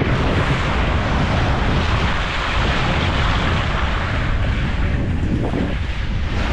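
Steady, loud rumbling noise of a vehicle travelling a rough road, with wind buffeting the microphone.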